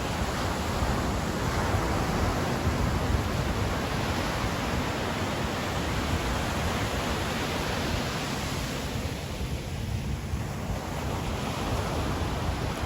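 Ocean surf washing onto a sandy beach in a continuous rush, easing briefly about two-thirds of the way through before building again, with some wind on the microphone.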